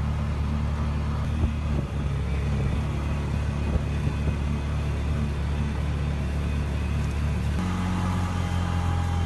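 Engine of a small off-road utility vehicle running steadily as it drives over burned prairie, its note shifting about three-quarters of the way through.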